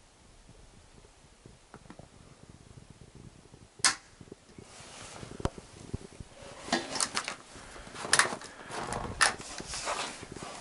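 Savage .22 LR bolt-action rifle misfiring: one sharp click of the firing pin falling on a dud round about four seconds in, with no shot. Handling noise with several lighter clicks and rattles follows.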